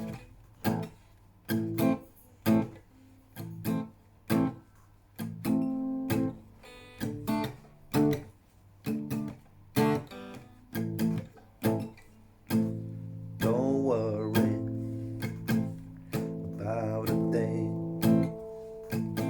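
Acoustic guitar playing an instrumental intro in a minor key, strummed in short, choppy chords about once a second, with a few longer ringing chords in the second half.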